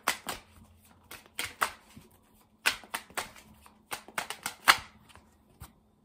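A Teal Swan Frequency Tarot deck being overhand-shuffled by hand: a quick run of sharp card snaps and flicks in irregular clusters, stopping shortly before the end.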